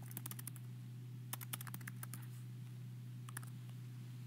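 Faint typing on a computer keyboard: short runs of key clicks near the start, about a second and a half in, and again after three seconds, over a steady low hum.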